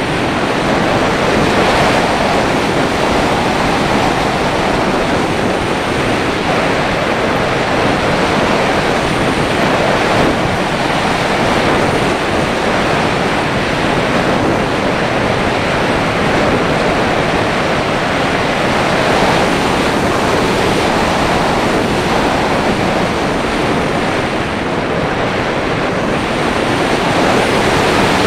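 Steady rush of wind noise from air streaming over the microphone of a HawKeye Firefly Q6 action camera on the nose of an unpowered Breta Models Starlite slope glider in flight. It swells and eases slightly but never stops.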